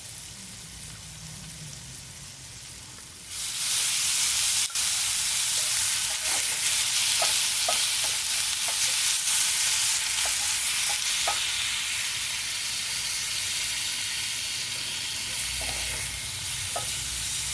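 Food frying in a hot pan: a faint sizzle turns suddenly loud about three seconds in and then holds steady, with a utensil clicking against the pan as the food is stirred.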